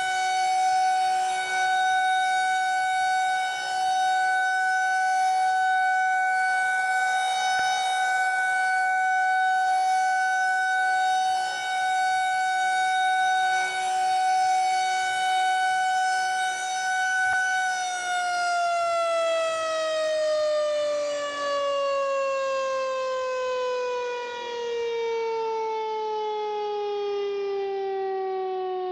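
Federal Signal 2001-130 electromechanical outdoor warning siren sounding a steady, loud tone, the alert signal. About 18 seconds in, its pitch begins sliding slowly and smoothly downward.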